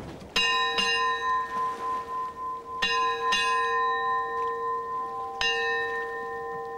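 Ship's brass bell struck five times in the ship's-bell pattern, two, two, then one: five bells, the half-hour signal within a watch. Each strike leaves a long, steady ringing tone.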